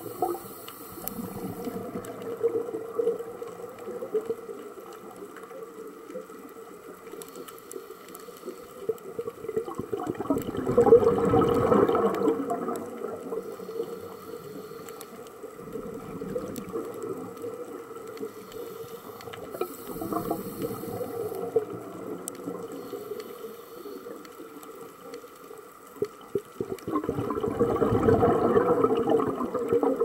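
Underwater sound picked up through a camera housing: a scuba diver's exhaled regulator bubbles swell up twice, about ten seconds in and again near the end, over a steady low underwater hiss with faint scattered clicks.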